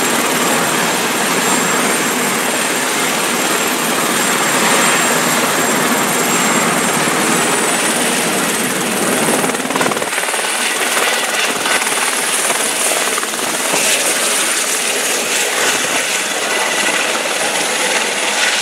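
Eurocopter EC130 tour helicopter with a shrouded fenestron tail rotor running loud at the pad and taking off: turbine and rotor noise with a steady high whine that climbs slightly about halfway through, the deepest rumble thinning out in the second half as it lifts away.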